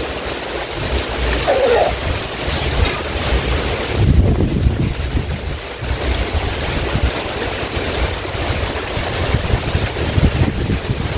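Wind buffeting the microphone, a steady rumbling noise, with the faint scratch of a broom sweeping a floor coming and going through it.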